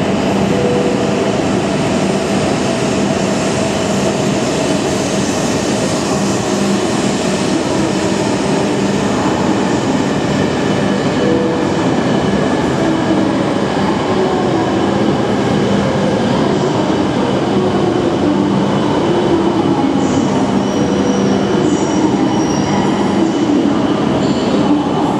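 Tohoku Shinkansen train running at a platform, with a steady loud rolling noise and motor hum. Thin high squeals from the wheels or brakes come in near the end.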